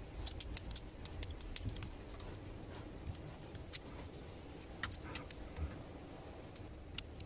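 Faint, scattered light metallic clicks and clinks of a 5 mm hex (Allen) key being handled and fitted to the fill plug of a car's rear differential.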